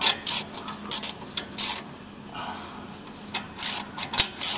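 Hand socket ratchet clicking in short, irregular bursts as a loosened catalytic converter mounting bolt is worked back out.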